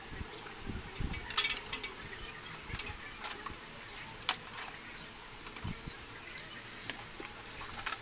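Refrigerator's hermetic compressor running with a faint steady hum, just started on an initial refrigerant charge. A brief light rattling comes about a second and a half in, and a single click about four seconds in.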